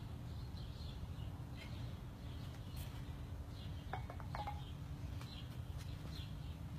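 Small birds chirping in short, repeated calls over a steady low rumble. About four seconds in, a brief clink of dumbbells being set down.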